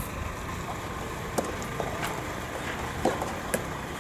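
Steady outdoor rumble with a few sharp pops of soft-tennis balls struck by rackets: one about a second and a half in, and two more near the end.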